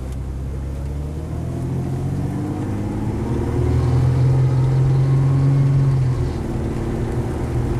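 2001 Ford Ranger's 4.0 L V6 engine pulling the truck along on a drive, its pitch climbing and getting louder, then easing off about six seconds in. It runs smoothly: the misfire is gone after new spark plugs and plug wires.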